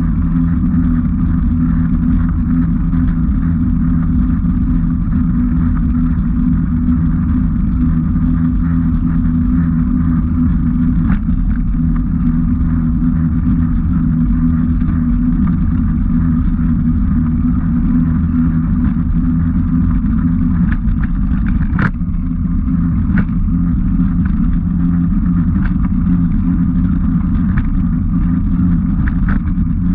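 Steady low rumble and drone of riding along a rough path, with a few sharp clicks, the loudest about 22 seconds in.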